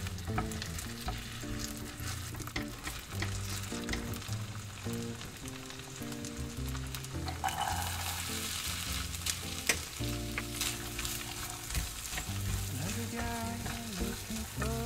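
Sliced potatoes sizzling in butter in a frying pan, with sweet corn kernels poured in about halfway through and a spatula stirring the pan near the end. Soft background music with a steady bass line plays underneath.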